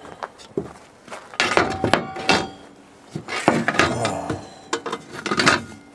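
Metal parts of a home-built air raid siren, a motor and shaft in a light-fixture housing, being handled and fitted together. Irregular clinks and knocks come in several clusters, some strikes ringing briefly.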